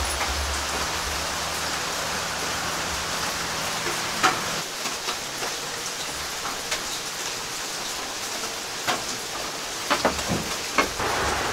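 Steady rain falling, with a few short sharp ticks and knocks scattered through it, several close together near the end.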